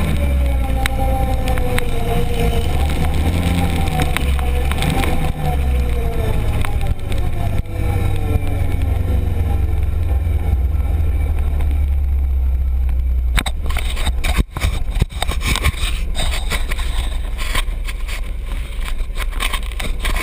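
Arctic Cat Prowler 1000 UTV's single-cylinder engine running under way, its pitch falling steadily over the first ten seconds or so as it slows. After that the engine runs lower and quieter, with sharp knocks and rattles from the machine jolting over rough ground.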